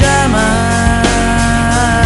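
Pop-rock song: a female lead vocal holds one long sung note over full band backing.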